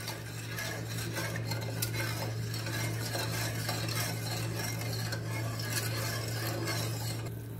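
A long-handled steel spoon stirring sugar and water in an aluminium saucepan, with many small scrapes and clinks of metal on metal. A steady low hum runs underneath.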